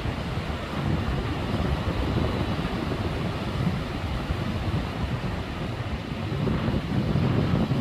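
Sea waves washing on the shore under wind rumbling on the microphone, a steady noise that swells a little near the end.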